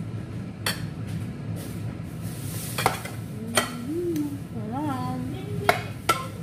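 Several sharp clinks of plates and dishes being handled on a table, with short hums through a mouthful in between. A steady low hum runs underneath.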